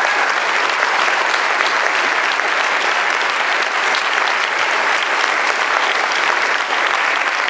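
Congregation applauding, a steady round of many hands clapping that holds at an even level throughout.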